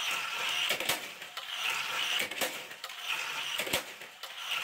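Johnny Lightning die-cast toy cars running on a plastic race track: a rolling whir that swells and fades about every second and a half, with sharp clicks now and then.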